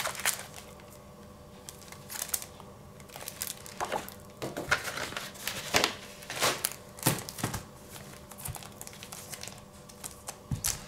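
Clear plastic sleeve crinkling and card packaging rustling as they are handled, in short spells with quieter pauses between, along with a few light clicks and knocks.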